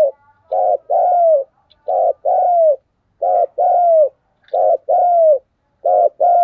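Spotted dove cooing: a short coo followed by a longer coo that falls in pitch at its end, repeated about five times at an even pace, roughly one phrase every 1.3 seconds. This is a decoy dove's territorial call.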